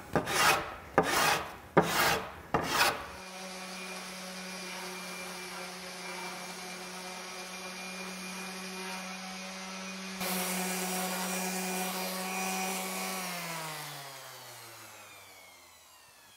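Hand plane taking four quick shaving strokes along the edge of a wooden keel. Then an electric random orbital sander runs steadily on the wood, grows louder about ten seconds in, and is switched off near the end, its hum falling in pitch as it spins down.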